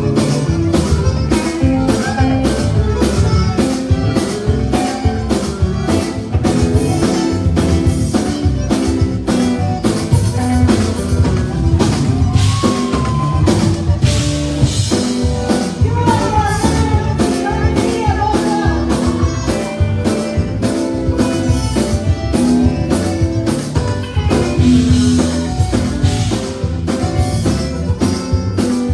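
Live conjunto band playing: button accordions carrying the melody over a steady drum-kit beat, bass and guitars, with a woman singing.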